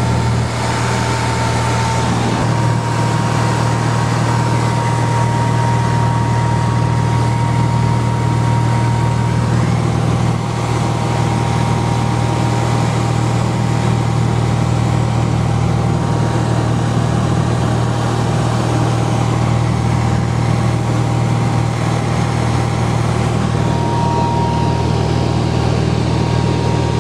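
Steady drone of a Cessna 182RG's six-cylinder Lycoming piston engine and propeller in level cruise, heard loud from inside the cabin.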